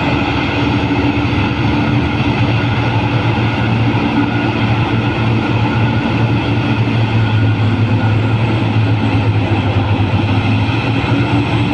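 Large hydraulic mining excavator's engine running at a steady, unchanging drone.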